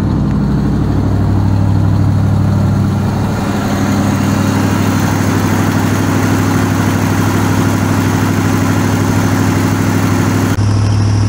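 1974 Ford F-350's 390 V8 idling steadily, warming up after a cold start. Near the end the sound shifts abruptly.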